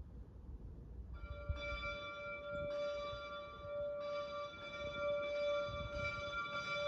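Small church choir bells, a peal of three tuned a'', b'' and d''', start ringing about a second in. They are struck again and again, roughly once a second, and the tones ring on between strokes.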